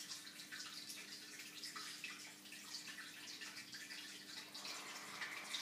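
Aquarium water trickling and dripping in quick, irregular little splashes, over a faint steady low hum.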